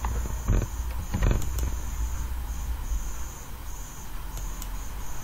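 A few sharp mouse clicks in the first second and a half over a steady low hum, with a faint high-pitched chirring that cuts in and out.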